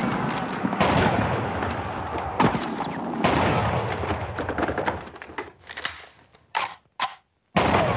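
War-film battle soundtrack of rapid rifle and machine-gun fire. It is dense for about five seconds, then thins out to a couple of last shots and a brief silence near the end.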